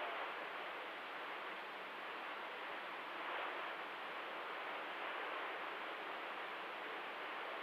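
Steady hiss of CB radio static from an open receiver between transmissions, with no voice on the channel.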